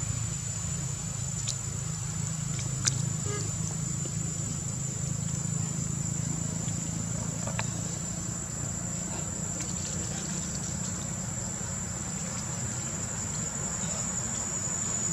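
Steady high-pitched insect drone over a low, steady hum, with a few faint clicks.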